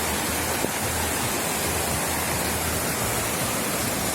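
Steady rush of water, an even hiss with no distinct events.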